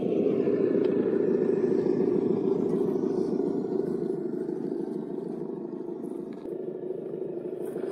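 6x6 Unimog driving down a steep descent, its running noise steady, easing slightly midway and picking up again near the end.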